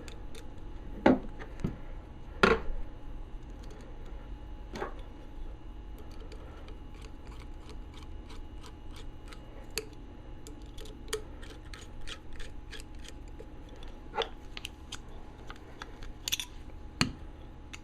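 Small steel parts of a Snap-on ratchet head clicking and tapping as its cover and screws are fitted: a few sharp clicks in the first five seconds, a run of light, fairly even ticks through the middle, and a few more clicks near the end.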